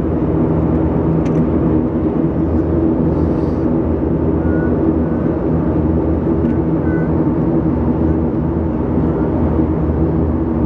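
Steady drone of a BAe ATP's twin Pratt & Whitney PW126 turboprops and propellers at taxi power, heard inside the cabin: a low hum with several held tones that stays even throughout.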